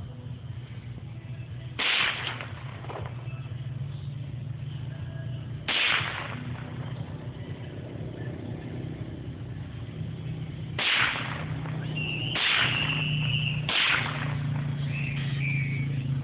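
Five single shots from a .22 AR-15-style rifle, spaced unevenly, the last three coming closer together, while its sights are being zeroed. A steady low hum runs underneath.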